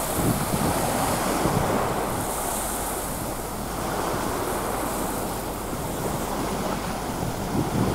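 Small sea waves washing up on a sandy beach, with wind rumbling on the microphone.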